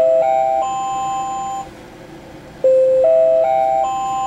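Electronic shop-door entry chime of a Zuru Mini Brands Mini Mart toy playset: a rising ding-dong tune of four overlapping notes. It plays once, then again starting about two and a half seconds in.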